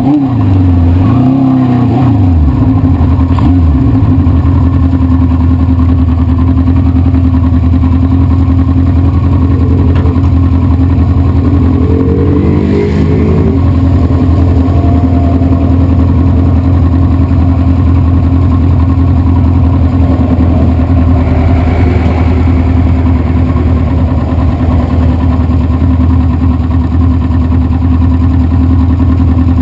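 1973 Honda CB500 Four's air-cooled inline four-cylinder engine running. Its pitch falls and wavers over the first few seconds, then holds a steady note, with a brief rise and fall about thirteen seconds in.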